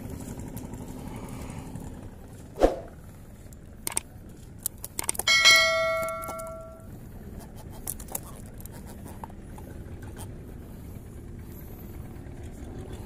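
A sharp knock, then a few light clicks, then a bright metallic ring like a small bell that dies away over about a second and a half.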